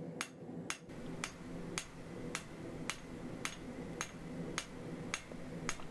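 Hand hammer striking red-hot 5160 leaf-spring steel on an anvil, forging the bevels of a longsword blade. The blows fall evenly, about two a second.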